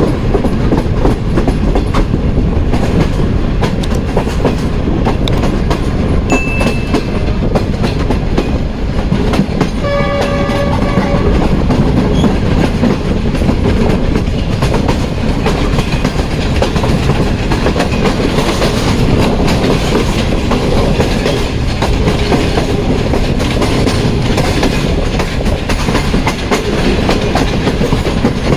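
Tezgam Express passenger train running at speed, with steady wheel-and-rail rumble and clickety-clack. A short horn blast sounds about ten seconds in.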